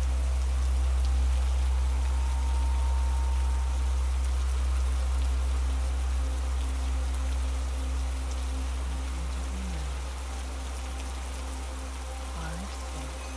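Steady rain ambience over a deep, steady low drone, slowly getting quieter.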